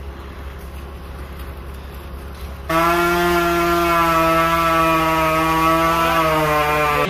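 Rigging line running around a GRCS capstan lowering device as a cut section is let down. About three seconds in it sets up a loud, steady groaning tone that holds for about four seconds and dips slightly in pitch before it stops.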